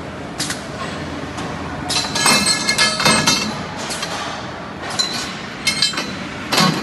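Steel parts clanking and clinking in an automatic scaffolding ledger welding machine: a run of irregular metallic knocks, several ringing briefly, over a steady machine noise.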